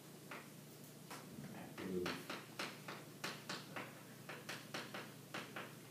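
Chalk tapping against a chalkboard while writing: a series of faint, irregular taps, a few each second.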